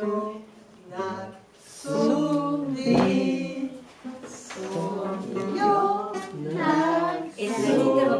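Two young girls singing a song together, phrase by phrase with short breaks between phrases.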